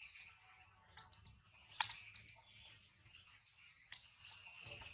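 Irregular sharp clicks, the loudest about two seconds in and again near the end, over a faint steady high-pitched background.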